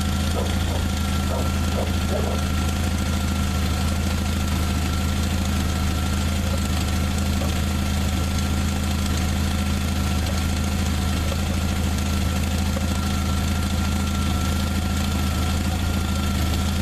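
1995 Jeep Wrangler YJ engine idling steadily, with a thin steady high whine over it. It keeps running smoothly, the sign that the new ignition coil and plug have cured its no-start fault.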